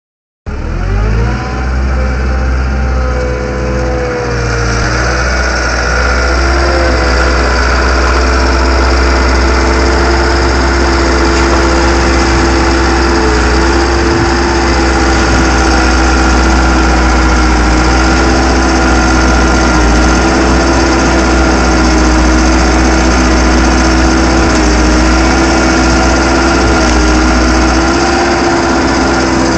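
Engine of the machine powering a silt sock auger bucket, running steadily at high revs while the auger churns through frozen mulch. It starts suddenly, rises in pitch over the first second or two as it comes up to speed, then holds steady with small wavers.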